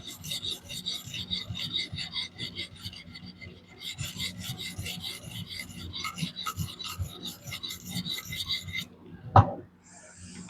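A diamond sharpening plate, about 1500 grit, stroked quickly and repeatedly along a DC53 steel knife edge in a fixed-angle sharpener: a rhythmic, gritty scraping, with a brief lull about three and a half seconds in. This is the stage of working one side until a burr forms before it is flipped. The strokes stop, and then a single sharp knock comes about a second later.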